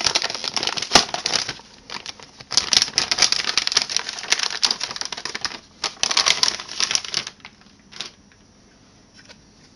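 Plastic covering being handled and peeled, crinkling and crackling in three stretches, then a few single clicks near the end.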